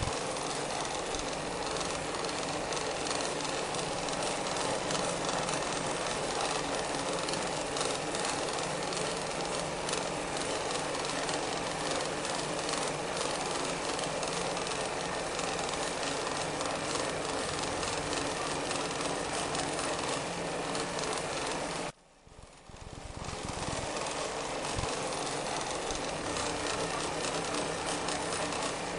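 Singer 36 carpet sewing machine running at speed: a steady, fast mechanical clatter. The sound drops away briefly about 22 seconds in, then the clatter resumes.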